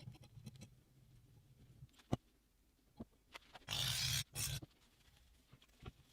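Workshop handling noises: a few sharp clicks and knocks, then two short rushing bursts of noise about four seconds in, the second one briefer.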